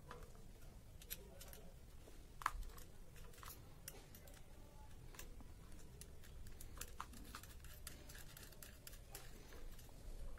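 Faint scattered small metallic clicks and ticks as a nut and bolt are fitted by hand to the ceiling fan's downrod clamp, with one sharper click about two and a half seconds in.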